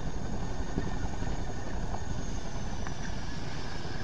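Tandem-rotor helicopter of the Chinook type running on the ground, rotors turning: a steady low rotor chop and engine rumble with a thin turbine whine. The whine drifts slightly lower in pitch after about two seconds.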